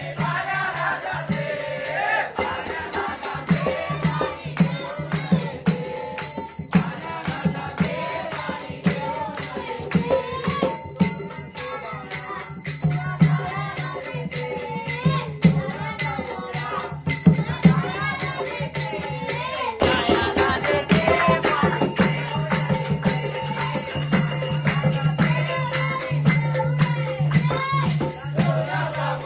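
Devotional bhajan music: a melody line that sounds like singing, over a hand drum beating steadily and small hand cymbals jingling continuously. About twenty seconds in the music changes abruptly, as at a cut.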